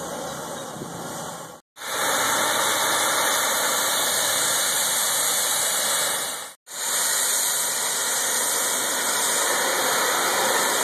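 Hot-water pressure washer spraying at low pressure and high volume: a loud, steady hiss of water spray. It cuts out to silence twice, very briefly.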